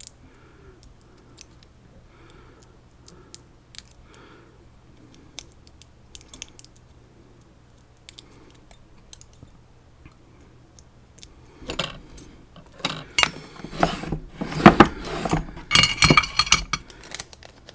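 After a long quiet stretch of faint handling, a run of light metallic clicking and rattling in the last few seconds: the Elzett Seclox dimple lock being taken apart after shimming, its plug and small pins and springs clattering out.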